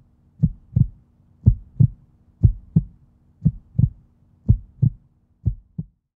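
Heartbeat sound effect: six double low thuds, lub-dub, one pair about every second over a faint steady hum, stopping about six seconds in.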